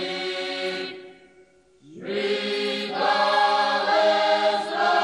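Background music: a choir singing held chords, fading out about a second in and starting again about two seconds in, louder by the end.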